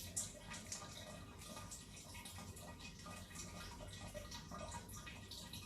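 Faint, irregular soft scrapes and taps of a teaspoon spreading tomato paste over a flattened chicken breast, over a low steady room hum.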